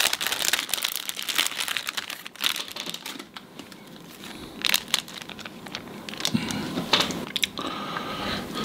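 Clear plastic wrapper of a chicken onigirazu crinkling and tearing as it is pulled open by hand. The crackling is dense for the first few seconds, then thins to scattered crinkles.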